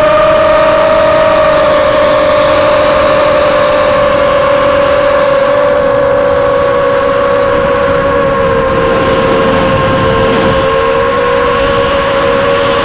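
Emax 250 quadcopter's four Emax MT2204 2300KV brushless motors spinning Gemfan 5x4 propellers, heard from the onboard camera: a loud, steady whine whose pitch sinks slowly and splits into two close tones about two-thirds of the way through, with a rushing noise beneath it.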